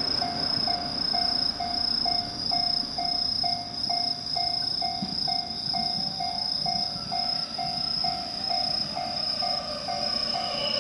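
Japanese railway level-crossing warning bell dinging steadily, about twice a second, with insects chirping throughout. Near the end the approaching electric train starts to be heard.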